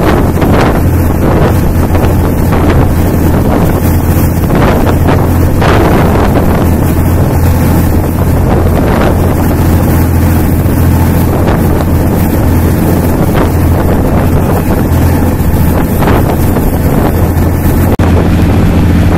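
The steady low drone of a passenger boat's engine under way, with wind rushing on the microphone and water noise. There is a brief break near the end.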